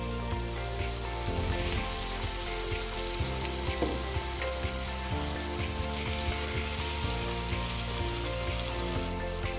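Mushrooms, onion and apple slices sizzling as they fry in a non-stick pan, with occasional clicks of a spatula stirring them. Background music plays under it.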